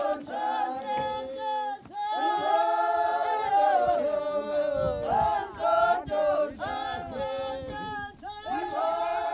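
A group of voices singing together unaccompanied, choir-style, in phrases that break off every second or so.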